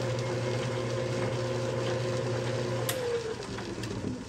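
Atlas TH54 lathe's electric motor and belt drive running with a steady hum. About three seconds in there is a click as it is switched off, and the hum drops in pitch and fades as the spindle coasts down.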